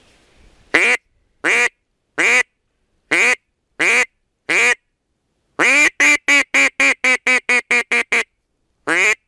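A hand-blown duck call sounding hen-duck quacks: six single quacks about 0.7 s apart, then a fast run of about ten short quacks, then one more quack near the end.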